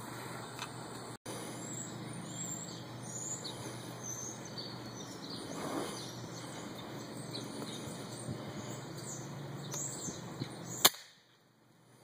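Small wild birds chirping repeatedly over a steady outdoor background. Near the end there is a single sharp click, after which the sound drops out almost entirely.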